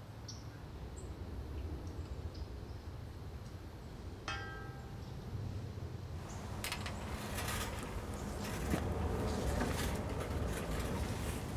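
A few faint bird chirps and one ringing metallic clink on steel about four seconds in. From halfway on, a run of light metallic clicks and rattles from the chain hoist as the steel saw-head beam is raised on it.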